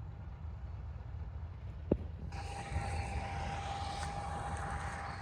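Combine harvester running in a paddy field, a steady low rumble. A sharp click comes about two seconds in, and just after it a steady high whine with a hiss joins in.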